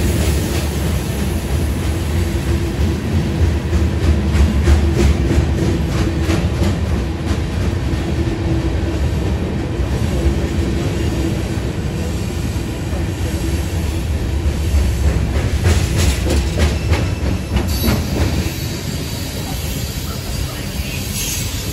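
Freight cars rolling past close by: a steady low rumble of wheels on rail with scattered clicks of wheels over rail joints. About 18 seconds in it gives way to the quieter, more distant rumble of a passing train of open hopper cars.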